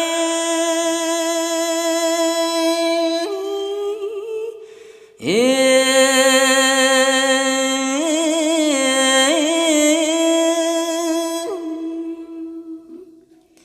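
Khmer smot chanting by a Buddhist monk: a single male voice holding long, drawn-out notes with wavering ornaments. It breaks for breath about five seconds in, then starts a second long phrase that fades away near the end.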